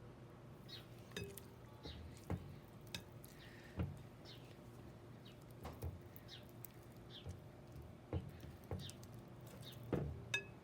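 Sticky glue slime being mixed in a bowl: scattered light clinks and taps of a utensil against the bowl, faint throughout.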